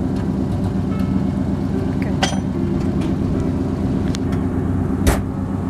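An engine running steadily at idle, a low constant hum. A faint click comes about two seconds in, and a sharp knock, the loudest sound, about five seconds in.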